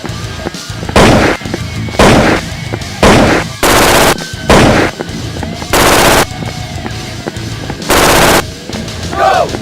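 Machine-gun sound effects, about seven loud bursts roughly a second apart: some short cracks, some longer rapid rattles. Background music plays under them.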